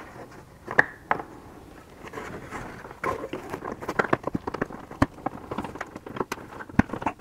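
Irregular small clicks and taps of plastic parts being handled: a wire being worked out of a flimsy plastic clip on a removed rear bumper.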